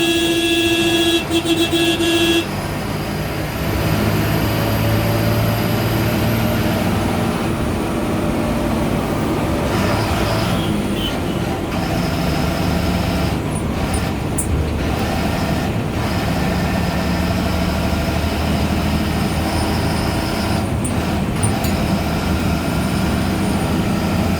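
Ashok Leyland bus diesel engine running on the move, its drone shifting in pitch several times as the revs change. A horn sounds at the start and stops about two seconds in.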